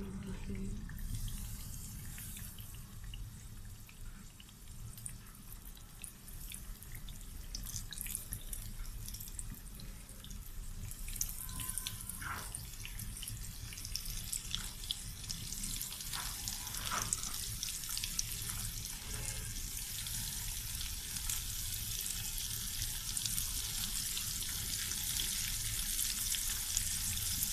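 Flour-and-egg-coated chicken drumsticks frying in hot oil in a frying pan: a steady sizzling hiss with scattered crackles, growing louder over the second half as the frying picks up.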